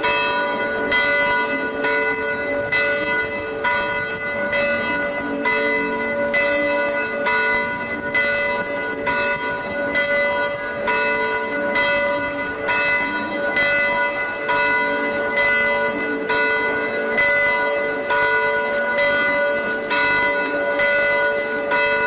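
Several church bells of different pitches pealing together, struck about once a second, their ringing overlapping without pause.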